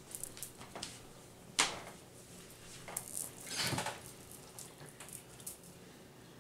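Small knocks and clicks of handling, with a sharp knock about one and a half seconds in and a longer rustle of fabric a couple of seconds later as a person settles into an upholstered armchair.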